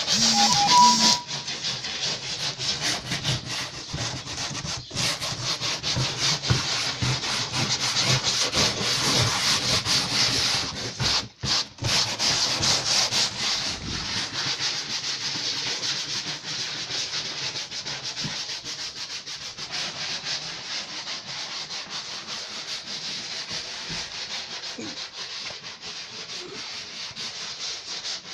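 Scouring sponges scrubbing the crumbled, deteriorated foam backing off a removed car headliner board: a steady, dense scratching that briefly stops about eleven seconds in and is a little quieter in the second half.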